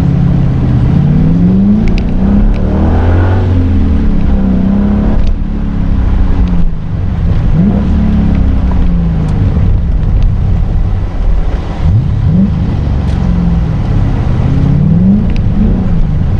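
V8 engines of a small convoy of sports cars accelerating and shifting gears, the engine note rising and dropping several times, heard from inside a car with the window partly down over wet road and wind noise.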